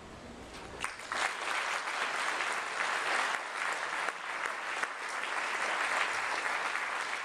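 An audience applauding, many hands clapping together. The applause starts about a second in and carries on without a break.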